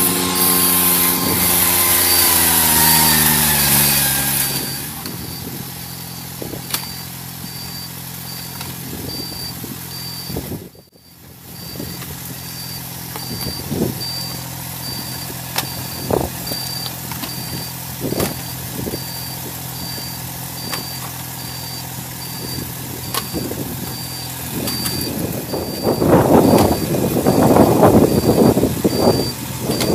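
Riding rice transplanter's small engine running steadily, its pitch falling over the first few seconds, with occasional knocks from the machine. A faint high beep repeats about once a second, and near the end louder rattling comes in.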